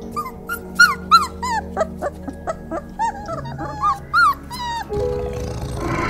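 Rapid series of short, high squeaking calls from an animal, each rising and falling in pitch, several a second. About five seconds in they stop and a steady noise takes over.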